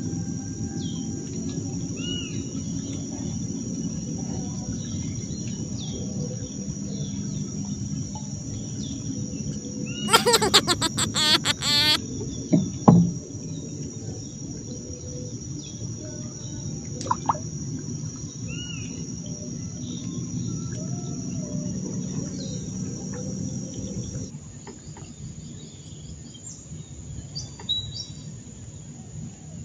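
Birds chirping here and there over a steady high insect drone and a low background hum, with a loud burst of rapid clicking lasting about two seconds around ten seconds in.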